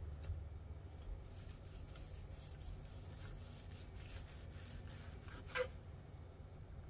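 Faint, soft sounds of a knife slicing through a glazed cooked ham and the slice being handled, with one sharper click about five and a half seconds in.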